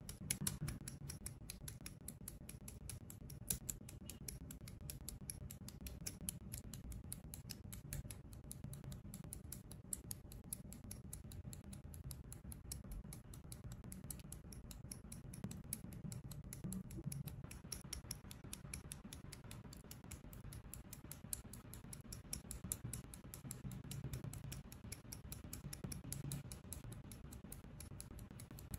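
Side cutters (sprue nippers) snipping small plastic model-kit parts: a rapid run of small cutting clicks, many per second, with a few sharper snaps.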